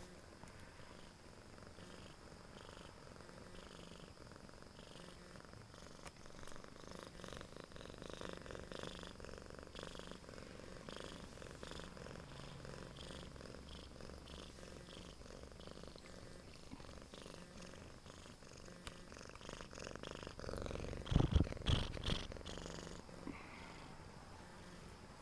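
Siamese cat purring close up, the purr swelling and easing in an even breathing rhythm. A few loud thumps break in about three quarters of the way through.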